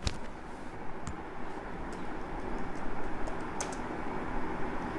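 A few scattered computer keyboard keystrokes clicking as text is typed, over a steady background hiss.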